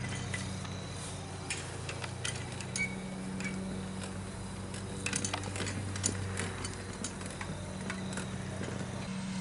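Pedal go-kart's steel frame and chain clicking and rattling as it is pedalled over grass, in scattered bursts, over a steady low hum.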